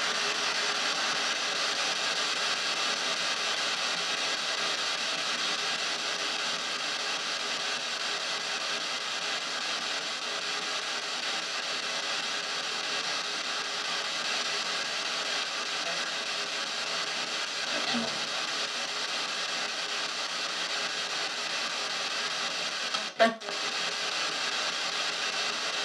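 P-SB7 spirit box sweeping through radio stations, played through stereo speakers: a steady hiss of radio static with brief chopped snatches of radio sound. A sharp click with a short dropout comes about 23 seconds in.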